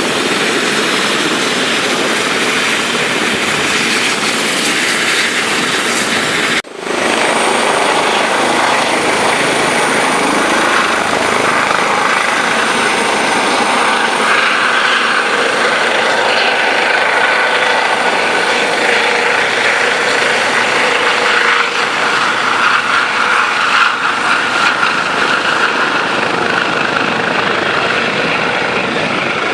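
Eurocopter EC135 twin-turbine helicopter running at close range as it lifts off and hovers low: a loud, steady turbine whine mixed with main and tail rotor noise, with a brief dropout about six and a half seconds in.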